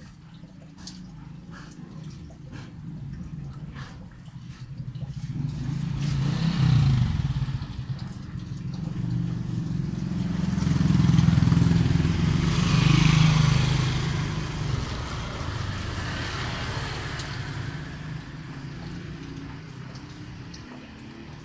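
A motor vehicle passing by on a wet road. Its engine hum builds up, swells to its loudest with tyre hiss about two-thirds of the way through, then fades away.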